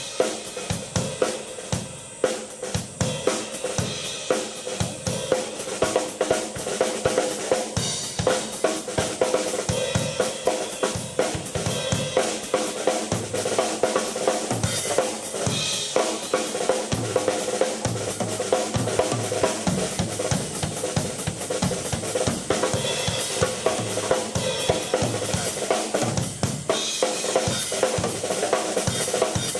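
Live rock drumming on a full drum kit, with kick, snare, hi-hat and cymbals hit in a steady, driving beat. Under it, a keyboard holds a sustained organ-like chord.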